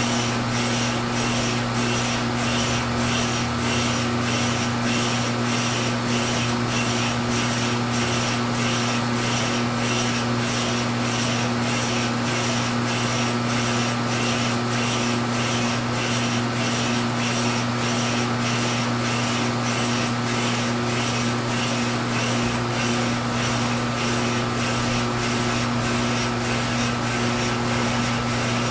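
A cutting tool scraping through a slowly turning fiberglass stern tube during a machining pass, pulsing roughly twice a second, over the steady hum of a shop vacuum drawing off the fiberglass dust.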